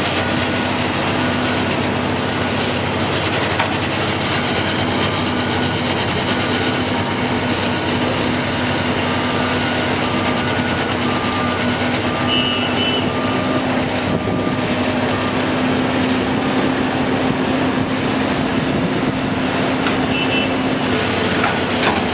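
Heavy-equipment engine running steadily: a continuous noisy drone with a steady hum, and faint short repeating tones over it.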